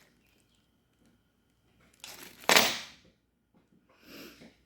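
Plastic packaging crinkling as the parts are handled: one loud rustle about halfway through and a softer one near the end.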